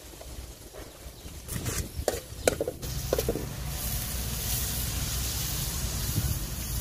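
A metal spatula clinks and scrapes a few times in a steel wok of frying pork, then a steady sizzle starts about four seconds in as a ladle of liquid is poured into the hot wok.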